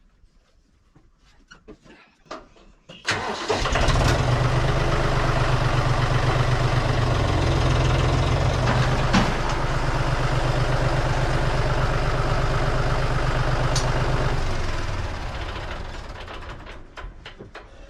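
An engine starts abruptly about three seconds in and runs steadily for about eleven seconds, then dies away over the last few seconds.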